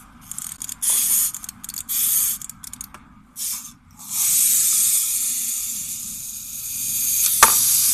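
Small plastic wind-up toy cat. Its knob is turned in short bursts of clicking, then from about four seconds in its mechanism runs with a steady high whirring noise, with a sharp click near the end.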